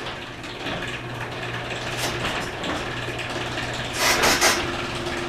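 Electric garage door opener running with a steady motor hum as the door comes down close to a parked car, with a brief rattle about four seconds in.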